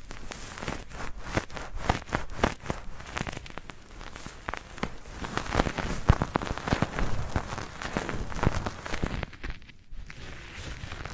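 Foam squished and rubbed by hand right at the microphone: a dense, irregular crackling of popping bubbles with wet squishing, easing briefly about nine and a half seconds in.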